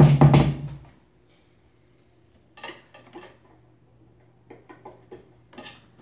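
A knock at the start, then scattered light clicks and rattles of wires and push-on terminals being handled inside an opened microwave oven as its high-voltage fuse is wired to the capacitor, over a faint steady low hum.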